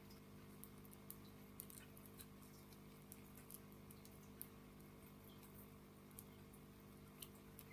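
Near silence with faint scattered ticks and crinkles of a small wrapped bag being picked open by hand, over a steady low hum.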